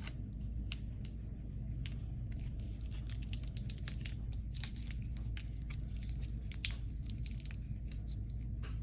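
Clear Scotch tape crackling in many quick bursts as it is pulled from the roll and wound around the crossed bamboo sticks of a newspaper kite, over a steady low hum.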